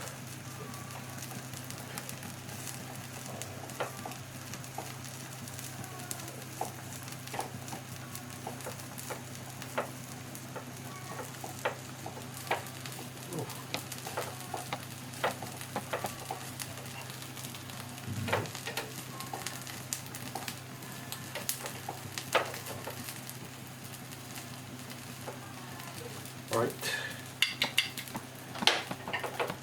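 Food sizzling and crackling as it cooks over a flame, with scattered pops above a steady low hum. Near the end come a few sharp clinks of utensils.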